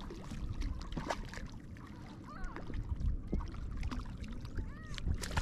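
Hooked rainbow trout splashing and thrashing at the water's surface as it is brought toward the net, in short irregular splashes over a low steady rumble of wind on the microphone.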